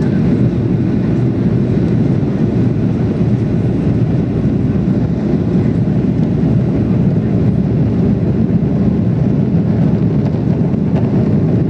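Steady low rumble inside the cabin of a Boeing 737-800 climbing after takeoff: its CFM56 turbofan engines and the rush of air over the fuselage, heard from a window seat over the wing.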